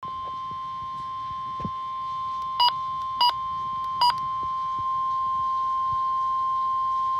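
NOAA weather radio sounding the steady 1050 Hz warning alarm tone of an EAS severe thunderstorm warning, with three short, sharper beeps over it between two and a half and four seconds in.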